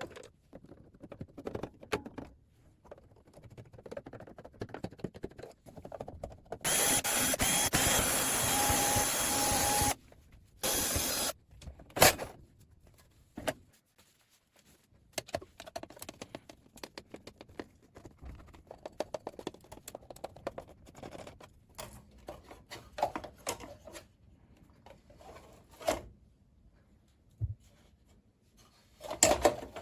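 Power screwdriver running in two spells, a long one of about three seconds and then a short one, while backing out the case screws of a keyboard. Between them come scattered clicks and taps of screws and plastic casing being handled.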